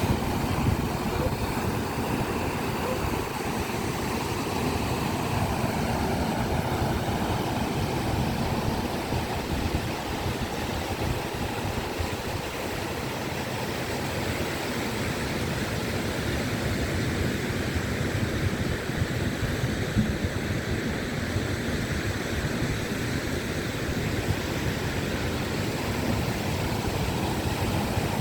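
Sea waves washing onto the shore: a continuous rushing surf with a low rumble, swelling and easing gently.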